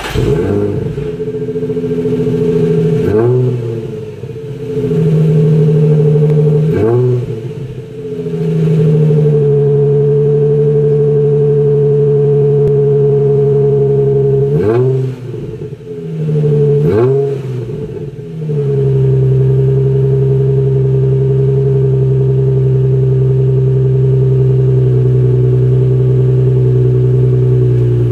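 Nissan 350Z 3.5-litre V6 at the exhaust tip with a Walker aftermarket midpipe fitted, running just after startup. It idles high, is given four short revs that rise and fall back quickly, then settles to a lower, steady idle about two-thirds of the way through.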